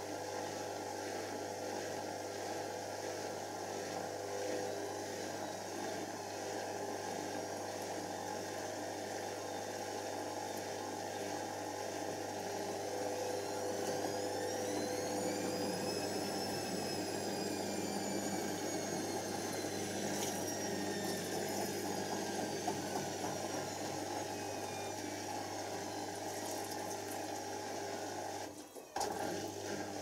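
Hoover Optima OPH714D washing machine on its final spin at 250 rpm: the motor and drum run with a steady hum. About halfway through, a motor whine rises in pitch for a few seconds, then slowly falls.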